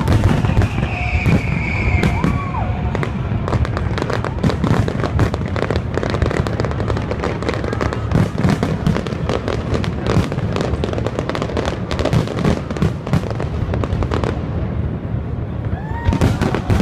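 Aerial fireworks display: shells bursting in rapid succession, a dense, unbroken run of bangs and crackling.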